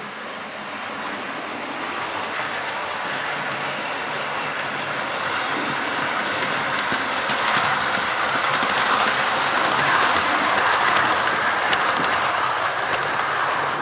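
OO gauge Hornby model of an LNER P2 steam locomotive hauling a rake of coaches along the track. Its motor hum and wheel rumble grow louder over the first ten seconds as it approaches and passes. Quick clicks of wheels over the rail joints come as the coaches go by.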